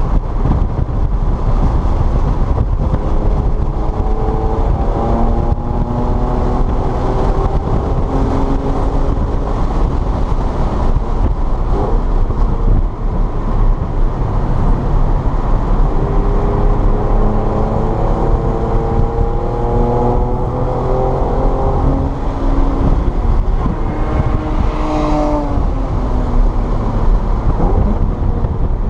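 Car engine accelerating hard through the gears, its pitch climbing several times and dropping back at each upshift, over a heavy low rumble of road and tyre noise.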